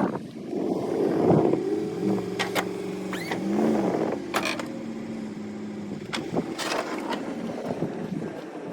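Engine of a snow-removal vehicle working as it back-drags snow off a driveway: a steady engine note that dips and rises a little around the middle. Several sharp knocks come through over it.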